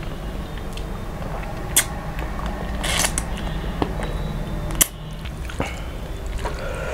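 Close-miked eating by hand: fingers squishing rice and fish curry, and chewing and sucking on fried fish, with a few sharp mouth clicks and smacks over a steady low hum.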